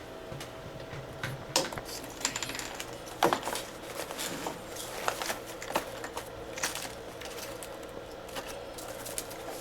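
Irregular clicks and light clatter of small hard parts and containers being handled and set down, with the sharpest knocks about one and a half and three seconds in.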